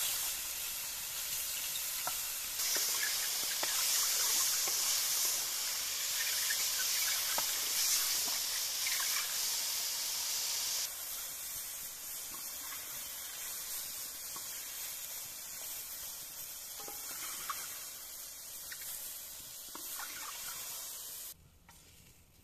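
Button mushrooms sizzling in hot oil in an aluminium frying pan, with small pops and the scrape of a wooden spoon stirring. The sizzle grows louder about three seconds in, drops to a quieter hiss about eleven seconds in, and stops abruptly near the end.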